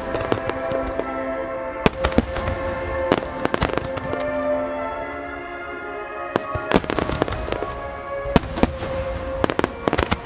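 Aerial fireworks shells bursting in quick, clustered runs of sharp cracks and booms, densest from about six and a half seconds in. Music with long held notes plays underneath.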